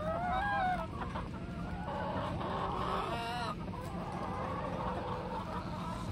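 A flock of chickens clucking and calling over one another as they feed, many birds at once, over a low steady hum.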